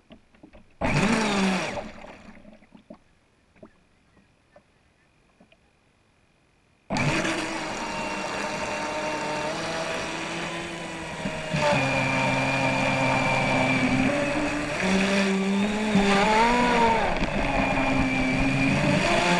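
Proboat Miss Geico 29 RC catamaran's 1500kv brushless motor and hull on the water, heard from on board: a short burst of running about a second in, then near silence with a few faint clicks. From about seven seconds the motor runs at speed with a steady whine whose pitch shifts in steps and wavers near the end.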